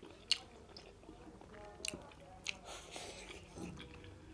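Close-up chewing of soft steamed beetroot momo dumplings: wet mouth sounds with a few sharp smacks and clicks.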